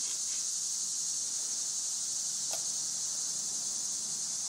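A steady, high-pitched chorus of insects, with a faint click about two and a half seconds in.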